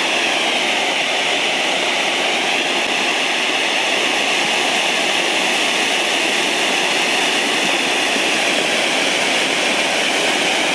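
Two TXF566 Fountain Rain firework fountains burning side by side, giving a loud, steady, rushing hiss as they spray their sparks.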